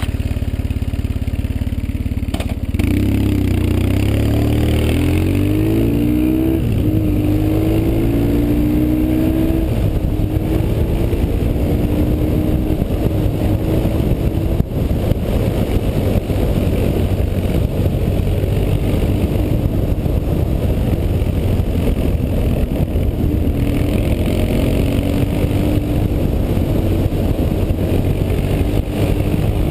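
BMW R 1150 GS's air/oil-cooled boxer twin running under way. It picks up about three seconds in, its pitch rising in steps through to about ten seconds, then runs steadily.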